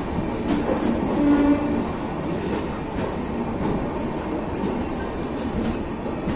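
Express passenger train running into a station platform, heard from on board: a steady rumble of wheels on rail with scattered clicks over the joints, and a brief tone about a second in.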